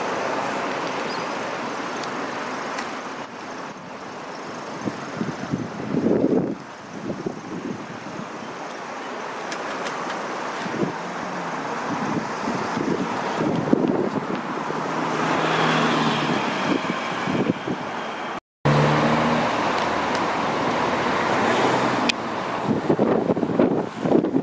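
Road traffic: cars driving past and idling on a busy street. The sound cuts out abruptly for a moment about three-quarters of the way through.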